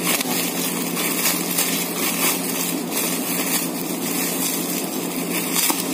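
Plastic bubble wrap crinkling and rustling as it is handled and pulled open by hand, with irregular small crackles.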